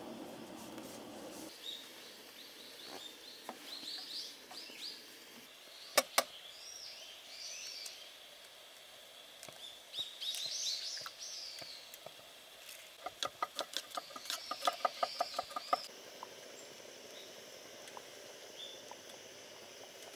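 Small birds chirping and twittering outdoors, with a sharp double click about six seconds in and, later on, a quick run of taps, about five a second, lasting a few seconds.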